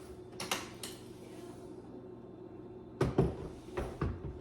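Infrared wall heater being hung onto screws in the wall: a couple of light clicks, then a few louder clunks about three seconds in as its mounting holes are worked onto the screw heads.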